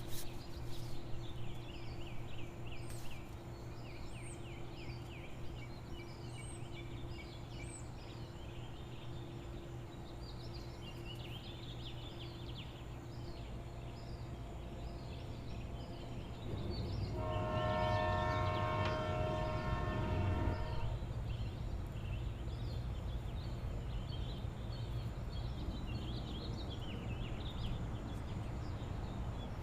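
Small birds chirping over a steady low hum. About 17 seconds in, a distant horn holds one chord-like tone for about four seconds over a low rumble, which fades off gradually afterwards.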